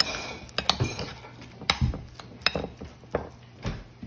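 A metal kitchen utensil knocking and clinking against a dish, about seven sharp strikes at uneven intervals.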